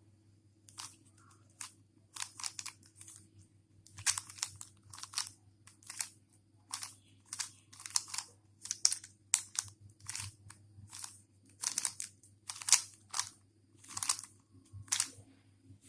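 Rubik's cube layers being turned one after another through a pattern algorithm: an irregular run of sharp plastic clicks and clacks, about two a second, as each face snaps round.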